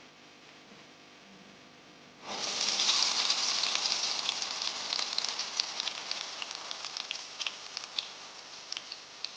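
Food going into hot oil about two seconds in: a sudden loud sizzle with crackling pops that slowly dies down.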